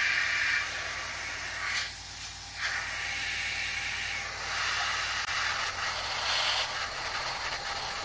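Airbrush spraying paint: a steady hiss of air with a low hum underneath, the hiss dipping briefly about two seconds in.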